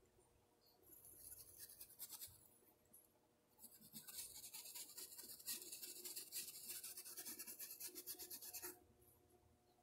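Paintbrush rubbing on thin fabric as paint is blended in: faint, scratchy brushing made of quick repeated strokes, a short spell about a second in and a longer one from about four seconds until near the end.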